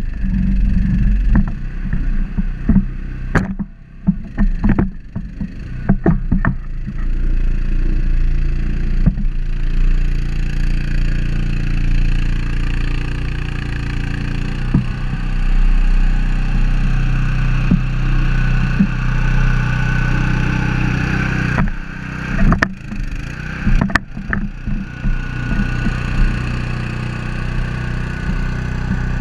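Nokka grapple log loader working: its engine runs steadily, its pitch shifting now and then, with sharp knocks and clanks from the grapple and logs. The clanks come in a cluster a few seconds in and again a little past the middle. A thin whine rises over the engine in the latter part.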